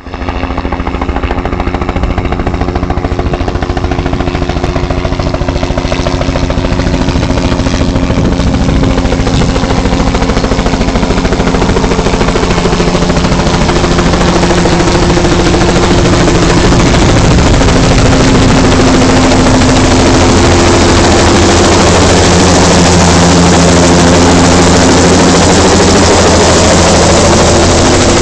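Bell 206 L4T TwinRanger helicopter approaching to land: a fast rotor beat over a steady twin-turbine hum. It grows louder as the helicopter comes overhead, then holds loud for the last third.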